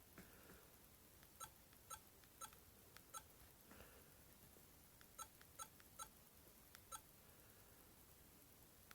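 Faint short clicks of the Alcatel OT-808's keypad as keys are pressed to scroll through the phone's menus: about eight presses, irregularly spaced half a second to a second apart, with a pause of about two seconds in the middle.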